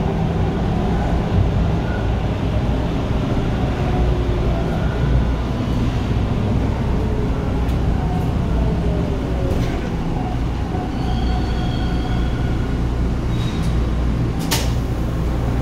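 Bombardier T1 subway train running and slowing as it pulls into a station: a steady low rumble with a motor whine that falls in pitch as it slows. Brief high tones come about two-thirds of the way through, and a sharp click near the end.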